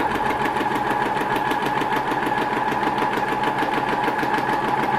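Electric sewing machine running steadily at a fast speed, stitching through paper without thread: a constant motor whine over rapid, even needle strokes about ten a second.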